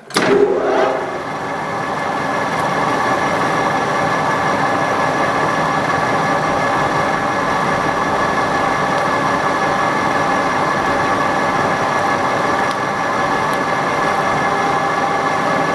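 Metal lathe starting up in the first second, then running steadily: its motor and headstock gearing give a constant whine with several fixed tones over a dense mechanical hum.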